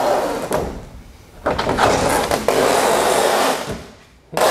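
Utility knife slicing through the old fabric covering of a Piper PA-16 Clipper wing, making scratchy cutting strokes: a short one at the start, a longer one of about two seconds in the middle, and another starting near the end.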